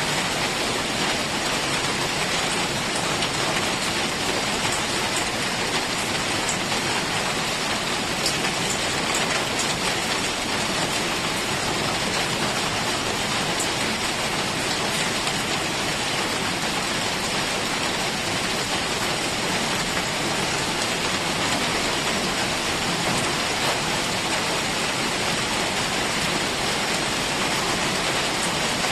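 Heavy rain falling steadily as a dense, even hiss, with a few faint drip ticks.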